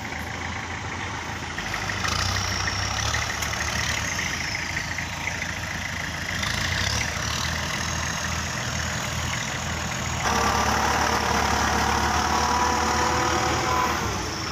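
Tractor engine running steadily with a stuck tractor trying to drive out of the mud. It gets louder about two seconds in and again about ten seconds in, when a faint steady whine joins it.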